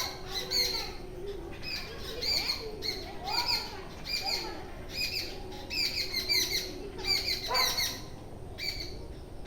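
Birds chirping, short high phrases repeated every second or so, with a few lower sliding calls underneath.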